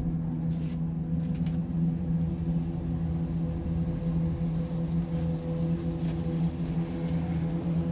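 Steady mechanical hum inside a cable-car gondola cabin as it runs along the haul rope toward the station, with a few faint clicks about a second in.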